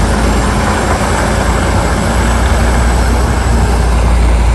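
Excavator's heavy diesel engine running, a loud, steady, deep rumble with dense mechanical noise over it.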